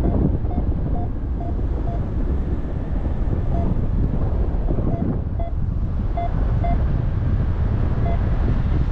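Steady wind buffeting the microphone of a paraglider in flight, with faint short electronic beeps repeating every half second to a second, typical of a variometer signalling lift.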